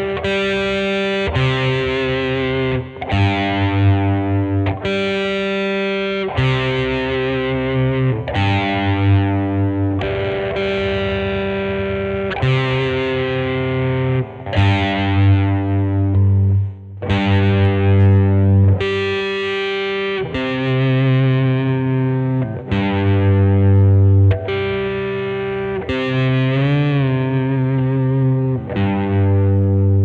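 Squier Vintage Modified Telecaster Thinline electric guitar played with distortion through a Peavey amp: strummed chords, each left to ring a second or two before the next. Near the end one chord wavers in pitch.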